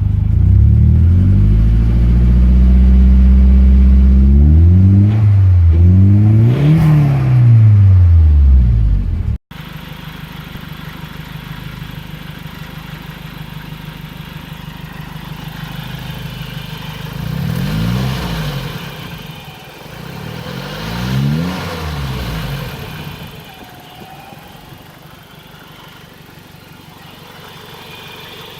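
Nissan CA18DET turbocharged four-cylinder engine revving loudly, its pitch rising and falling. After a sudden cut about nine seconds in, it idles more quietly, with two short revs in the middle before settling back to a steady idle.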